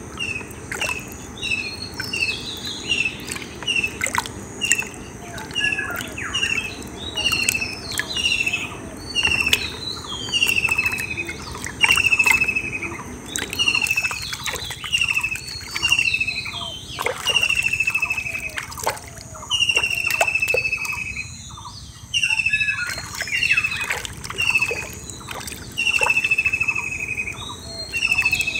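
Birds calling over and over, a short falling whistled note about once a second with higher chirps above it, over wet squelches and splashes of a hand working in a muddy, water-filled hole.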